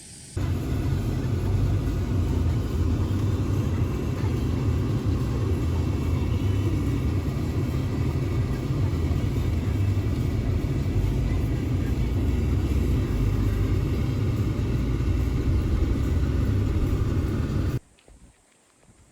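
A vehicle, presumably the Toyota Land Cruiser 70, driving along with a steady low rumble of engine and road noise. It starts suddenly about half a second in and cuts off sharply near the end.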